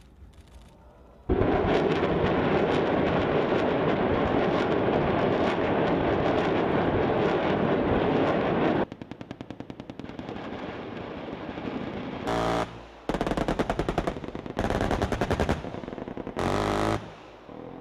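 Live-fire military weapons: a dense, continuous roar of massed firing starts about a second in and cuts off suddenly about seven seconds later. It is followed by automatic machine-gun fire in several short, rapid bursts, each about a second long.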